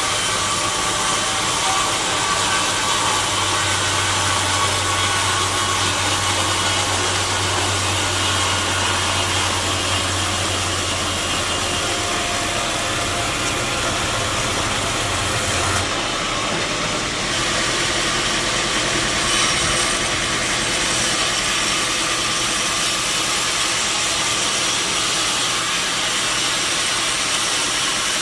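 Sawmill saw machinery running steadily, a loud motor hum with a dense hiss over it; the low hum drops out and the sound changes about sixteen seconds in.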